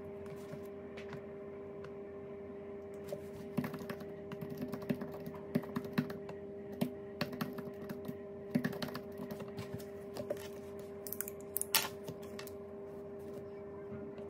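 Scattered light clicks and taps of pen and book handling on a desk, irregular and clustered through the middle, over a steady low hum.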